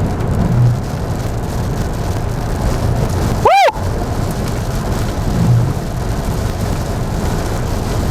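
Heavy rain on a moving car, with tyre noise on the wet road, a steady hiss over a low rumble. About three and a half seconds in, a short chirp rises and falls in pitch.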